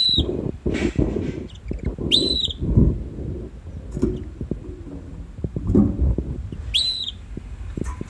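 Red canary giving three short whistled chirp calls, each rising then dropping in pitch: one at the start, one about two seconds in and one near the end. Irregular low rumbling and bumps run underneath.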